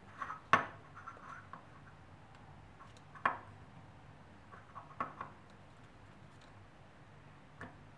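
Light metallic clicks and ticks of a piston ring being worked by hand over a 70cc two-stroke piston toward its groove. There are three sharper clicks, about half a second, three seconds and five seconds in, the first the loudest.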